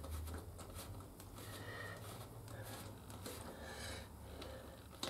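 Faint rubbing and handling of a plastic motorcycle bottom spoiler panel as it is worked loose by hand, over a steady low hum.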